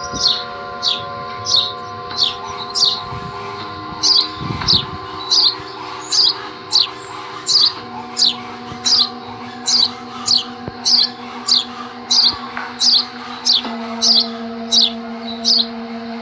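A bird repeats the same short, falling chirp about three times every two seconds, over held meditation drone tones that change pitch twice.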